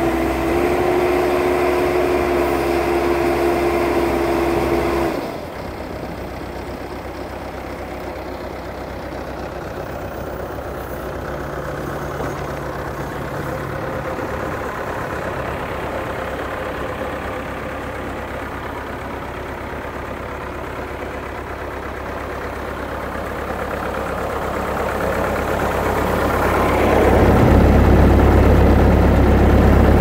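Bobcat S130 skid steer's diesel engine running, at first with a strong steady whine that cuts off about five seconds in, leaving a quieter idle. The engine sound then grows louder and deeper over the last few seconds.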